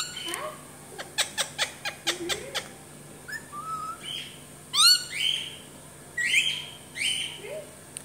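Alexandrine parakeet calling. About a second in comes a quick run of sharp clicks, then a string of short rising whistles and harsher, raspy calls, the loudest a little before the five-second mark.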